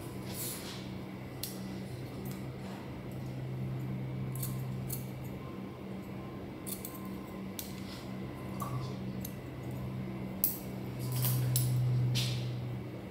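Hairdressing scissors snipping through hair in scattered short snips, with a steady low hum underneath that swells near the end.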